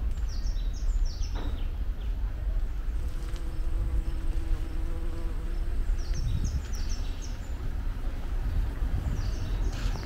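A songbird repeats a short song of quick, falling high notes three times, and for a couple of seconds in the middle a steady low buzzing hum runs under it.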